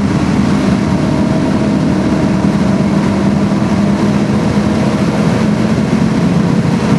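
Subaru Impreza STI's 2.5-litre turbocharged flat-four engine through its Milltek exhaust, heard from inside the cabin, running hard at track speed with a steady drone that holds its pitch. Road and wind noise sit underneath it.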